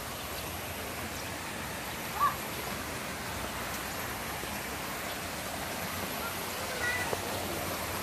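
Steady rushing of a shallow stream flowing over stones, with one short high call about two seconds in and a few faint chirps near the end.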